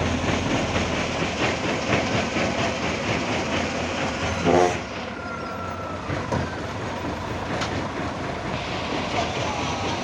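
Hitachi excavator at work loading a dump truck: the diesel engine runs under a steady clatter of metallic rattling and clanking. A brief, louder pitched squeal comes about halfway through.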